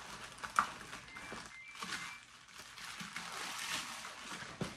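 Plastic poly mailer bag crinkling and rustling as it is torn open by hand, with a few sharp snaps of the plastic.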